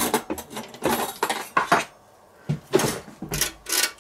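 A stainless steel box grater and a fork being handled: several separate clattering knocks and scrapes of metal on metal, with a short pause about halfway through.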